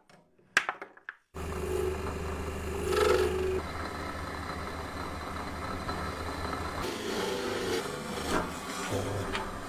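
A few clicks, then a power tool's electric motor starts about a second in and runs steadily, with rubbing and scraping as the work is held against it.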